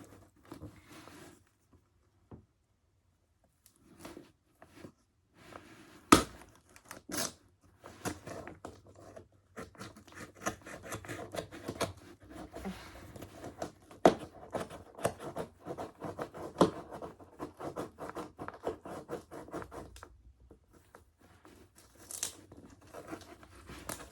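A parcel being opened by hand: packaging tearing and crinkling in quick, irregular rustles, with a sharp snap about six seconds in.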